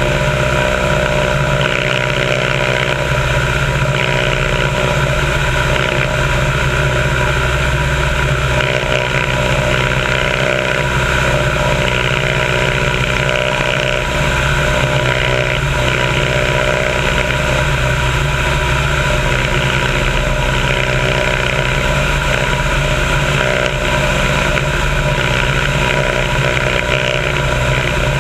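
A biplane's piston engine running steadily in cruising flight, with the rush of the airflow over the wing. The engine note and the wind noise hold constant throughout.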